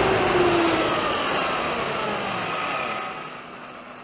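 Traxxas E-Maxx RC monster truck's electric motor and gears whining, the pitch sliding down as it slows, over road noise from its tyres on asphalt. The sound drops away about three seconds in.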